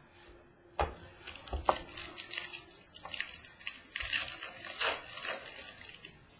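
Trading card pack being opened and its cards handled: a wrapper crinkling and tearing, with a quick irregular run of rustles and small clicks starting about a second in.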